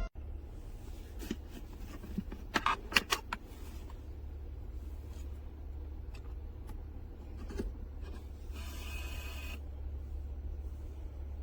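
Music cuts off, leaving a steady low hum. A quick cluster of sharp mechanical clicks comes about two and a half seconds in, a single click follows later, and a brief whirr about nine seconds in.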